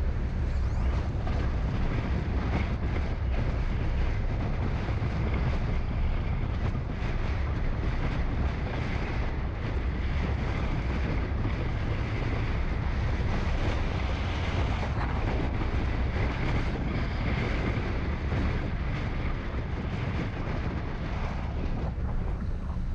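Steady low rumble of a car driving, with wind noise on the microphone.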